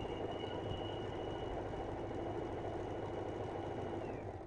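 Usha Janome Allure DLX electric sewing machine running steadily, stitching a darn over a tear in cloth, with a thin motor whine over the needle's steady clatter. The whine drops in pitch just before the end and the machine stops.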